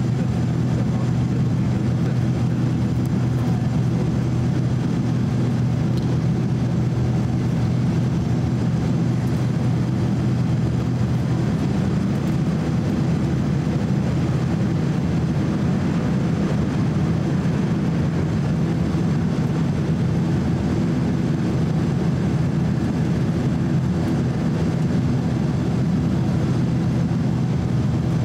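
Steady cabin noise inside a Boeing 767-300 airliner in flight: an even drone of its jet engines and the airflow, with a steady low hum, unchanging throughout.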